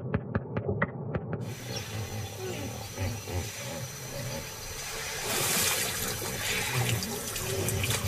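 Hippo clicks heard underwater, a quick run of sharp clicks about five a second, muffled. About a second and a half in they give way to water sloshing and splashing around hippos at the surface, which grows louder about five seconds in.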